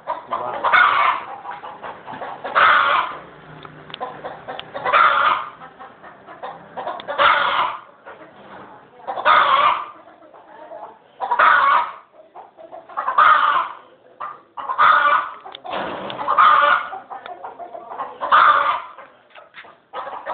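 An animal calling over and over in short, hoarse, chicken-like cries, about one every two seconds.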